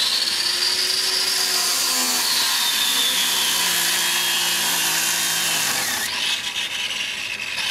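A handheld power tool running hard, its high whine sagging in pitch as it is pressed into the work and climbing again near the end.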